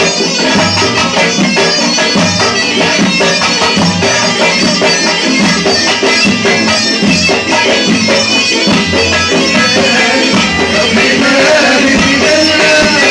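Loud Tunisian folk music: a reedy wind instrument playing over a steady drum beat.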